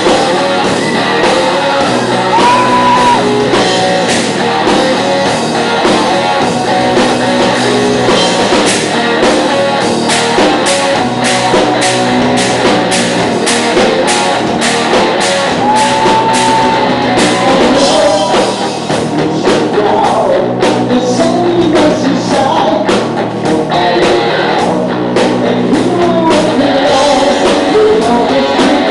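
Rock band playing live, with a singer's voice and drums over the band.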